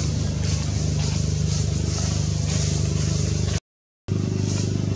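A steady low mechanical hum, like a motor running, broken by a half-second dropout to dead silence about three and a half seconds in.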